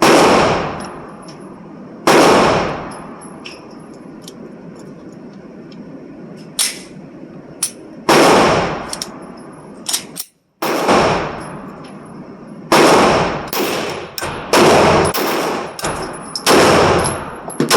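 Glock 19 9mm pistol firing at an indoor range: about ten sharp shots, a couple of seconds apart at first, then in quicker strings in the second half, each echoing off the range walls, with smaller clicks between them.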